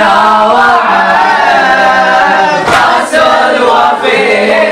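A group of boys chanting a Shia latmiyya (mourning chant) together, with one chest-beat thump about three seconds in.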